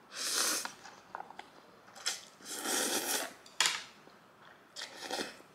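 A person slurping and eating mouthfuls of spicy instant noodles in three short noisy bursts, with a few light clicks and taps between them.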